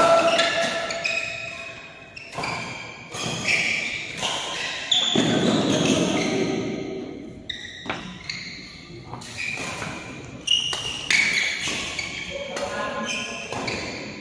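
Badminton rackets striking a shuttlecock in sharp smacks, mixed with short high squeaks of court shoes on the court mat, in a rally that pauses partway through and then starts again.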